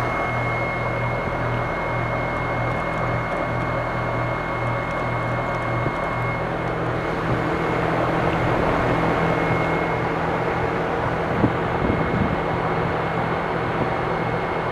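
American Standard 5-ton heat pump outdoor unit running: steady compressor hum under the rush of the condenser fan. A thin high whine fades out about six seconds in.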